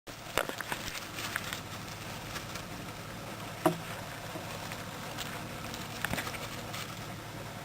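Steady low hum and hiss with a few small, sharp clicks and taps scattered through it, the loudest about three and a half seconds in.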